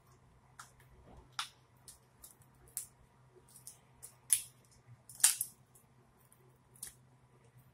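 Boiled lobster tail shell cracking and crackling as it is pulled apart by hand: sparse, irregular sharp cracks, the two loudest about four and five seconds in.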